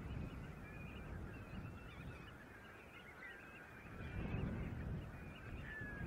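A large flock of shorebirds calling continuously, many short chattering calls overlapping, over a low uneven rumble that swells about four seconds in.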